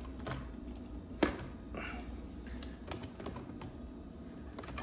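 A few light clicks and knocks as an e-bike's Beluga-style frame battery is set onto its mount, the loudest a sharp knock about a second in.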